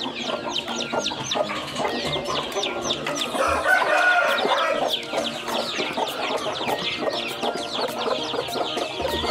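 A tub of newly hatched chicks peeping without a break, many short, high, falling cheeps overlapping several times a second. About three and a half seconds in, an adult chicken calls louder and lower for a second or so.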